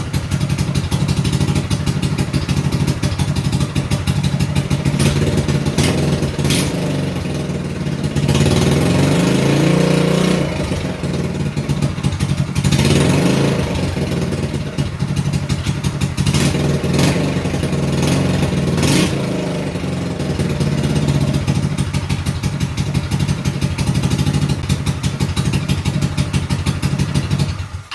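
Mini bike's small engine running through a trial muffler that is too big for it, which makes it quieter. It is revved up and back down several times between steady running, then cuts off suddenly near the end.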